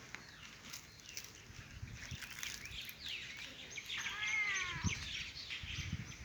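Small birds chirping and twittering in the background, with one longer drawn-out call that arches up and down about four seconds in.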